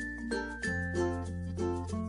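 Background music: a quick melody of short pitched notes over a held bass note that changes pitch a little over half a second in.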